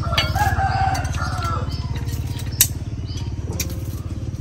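A small engine running steadily, a low rumble with a fast, even throb. A few sharp clicks of utensils on dishes cut through it, the clearest about two and a half seconds in.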